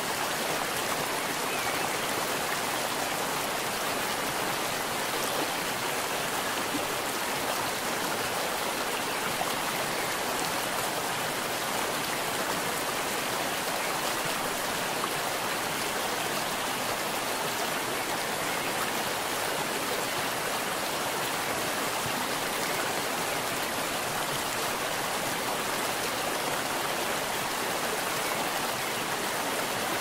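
Waterfall, its water rushing in a steady, unbroken hiss.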